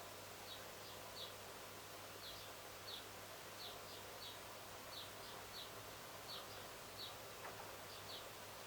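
Faint background ambience with a steady low hum, over which a small bird gives short high chirps, one or two a second, in a regular pattern.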